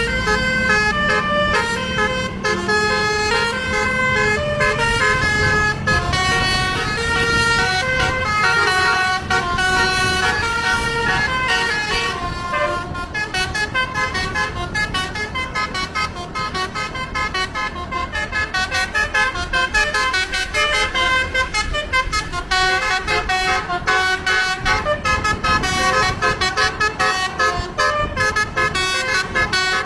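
Bus telolet horn, a multi-tone melodic air horn, playing quick tunes note by note over the low sound of the bus engine running, the notes getting faster and choppier about halfway through.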